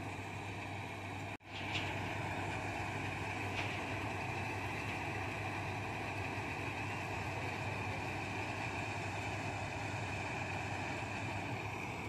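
Combine harvester working in a rice crop: engine and threshing mechanism running steadily with a low hum and a high whine. The sound cuts out for an instant about a second and a half in.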